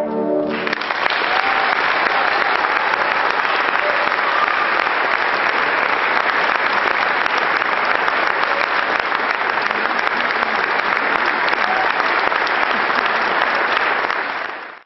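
A French horn ensemble's final held chord cuts off about half a second in. The audience then breaks into steady applause, which fades out near the end.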